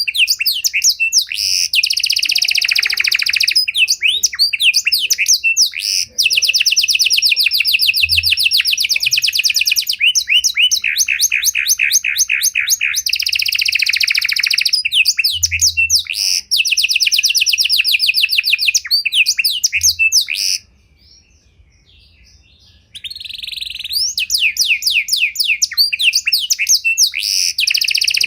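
Panda canary singing a long, varied song of fast trills and rolls. It breaks off for about two seconds roughly three quarters of the way through, then starts again.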